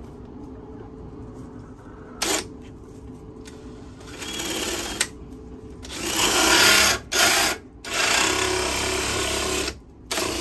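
Cordless drill cutting into the coop's wooden wall with a hole saw, run in bursts: a short one about two seconds in, then longer, louder runs from about six seconds on, broken by brief stops.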